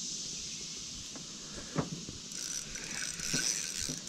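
Spinning reel being cranked to bring in a hooked fish, a mechanical whirring that starts a little over two seconds in, over a steady high drone of swamp insects. A single sharp knock comes just before the reeling.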